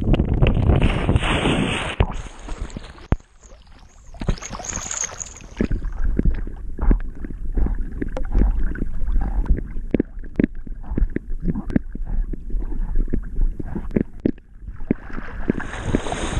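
A dog swimming with a chest-mounted camera at the waterline: water splashes and sloshes against the camera in rapid, irregular knocks as it paddles. There is a brief quieter dip about three seconds in.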